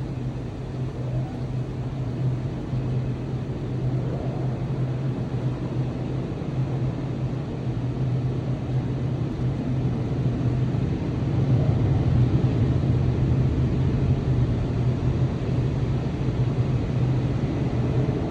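Car wash machinery running with a steady low hum under a constant rushing noise, growing a little louder about two-thirds of the way through.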